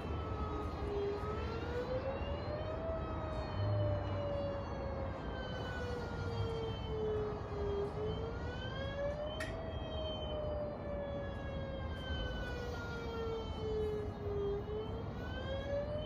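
Mini Whelen siren sounding a slow wail, heard from a distance. Its pitch climbs for about two seconds and sinks for about five, cycling twice. A sharp click cuts in about nine seconds in.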